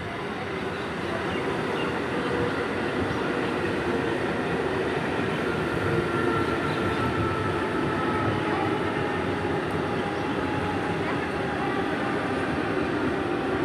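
Old EMU (electric multiple unit) local train running on the track: a steady rail rumble that builds over the first couple of seconds and then holds.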